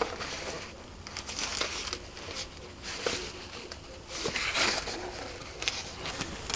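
Clear plastic bag crinkling and rustling in several short bursts as the boxed label printer wrapped in it is handled and turned over, with a few small clicks of handling.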